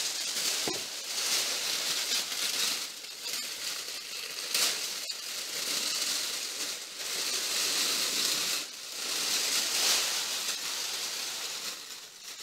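Thin gold-and-silver metallised foil sheet crinkling and rustling as it is pulled out and handled, in several swells of hissy crackle.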